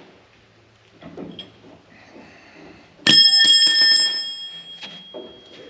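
Metal clang about three seconds in, a piece of metal struck or dropped during work on a combine's feederhouse, ringing at several high pitches and fading over about a second and a half, with a second lighter strike just after. Faint knocks and shuffling of tools and parts come before it.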